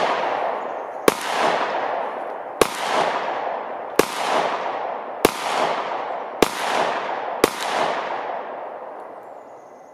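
DWM commercial Luger pistol in .30 Luger (7.65 mm Parabellum) firing six single shots, roughly one to one and a half seconds apart, each followed by a long echo that dies away after the last shot.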